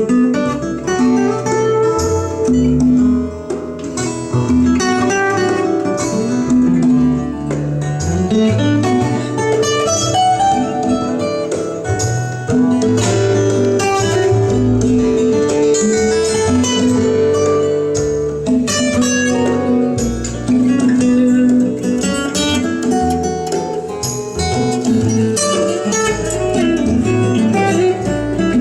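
Instrumental guitar music played through a pair of vintage JBL C38 speakers, two-way cabinets with D130 drivers and 075 ring-radiator tweeters, driven by McIntosh tube amplifiers.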